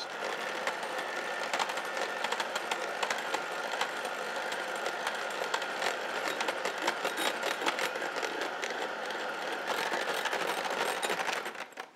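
Electric hand mixer running steadily, its beaters whisking egg whites while hot sugar syrup is poured in. The motor stops shortly before the end.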